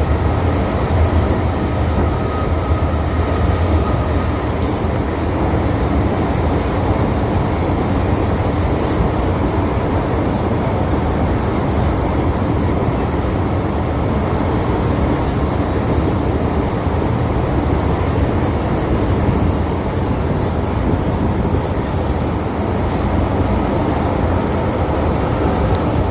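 1979 first-generation MTR M-Train (Metro-Cammell CM Stock) running at steady speed with a continuous low rumble of wheels and traction. No brake squeal in this stretch.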